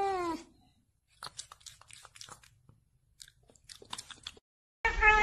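A cat's drawn-out meow trails off with a falling pitch just after the start, followed by a few seconds of faint scattered clicks. Near the end a loud, wavering cat call begins.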